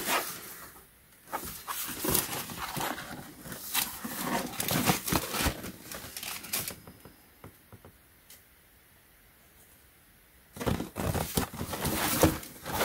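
Hands handling and turning a cardboard shoebox: irregular rustling, scraping and light tapping on the cardboard, pausing for a few seconds past the middle, then starting again near the end.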